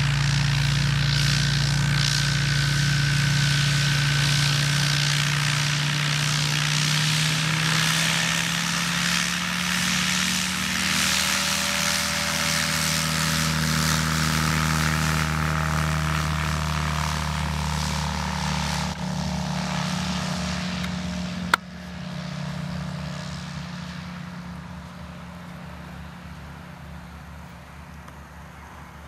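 HK36 Super Dimona motor glider's propeller engine running at take-off power through the ground roll, loud as the aircraft passes close, then fading steadily as it climbs away. A single sharp click about two-thirds of the way through.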